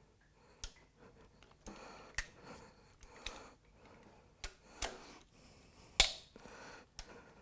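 Sharp metallic clicks and knocks of hand tools working on a car engine, about eight at irregular intervals, the loudest about six seconds in.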